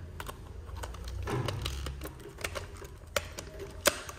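Irregular light clicks and taps of small plastic parts handled and fitted together, as a worker figure is set into a plastic toy excavator's cabin, with a few sharper clicks near the end.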